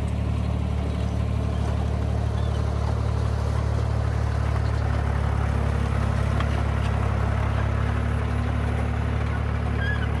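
John Deere bulldozer's diesel engine running steadily under way, a low, even hum with a mechanical clatter over it.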